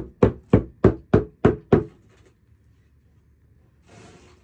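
Rubber mallet tapping backsplash tiles down into mortar: a steady run of even knocks, about three a second, that stops about two seconds in. A brief soft rustle follows near the end.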